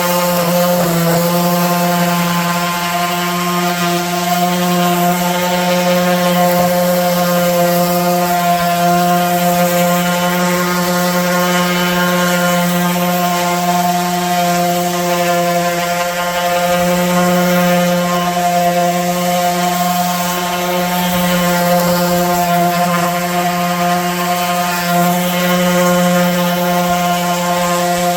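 Electric orbital sander running steadily while rough sanding wooden table boards: a constant motor hum that swells and eases a little as it is pressed and moved over the wood.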